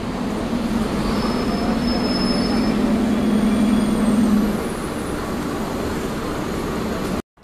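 Single-deck bus passing slowly at close range, its engine giving a steady low hum that swells as it comes alongside and then eases, with a faint high squeal early on. The sound cuts off suddenly near the end.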